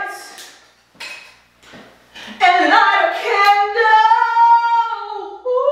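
A woman singing unaccompanied: a brief phrase, a short pause, then a longer melodic line with a drawn-out held note.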